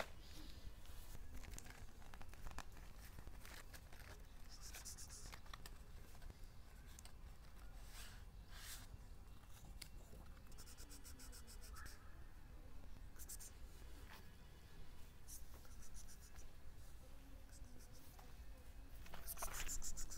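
Quiet outdoor ambience: soft rustling and scraping sounds under a steady low rumble, with brief bursts of fast, high chirping now and then.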